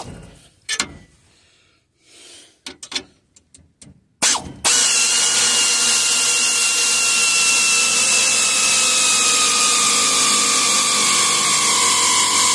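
A few scattered clicks and taps, then from about four and a half seconds in a power ratchet runs continuously, backing off a traction bar mounting nut. Its whine falls slowly in pitch as it runs.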